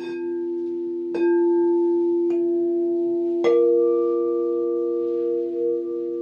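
Crystal singing bowls ringing in sustained, overlapping tones, with four strikes about a second apart that each add a new note over the ones still sounding, so the chord builds and grows louder. Near the end one tone wavers as the notes beat against each other.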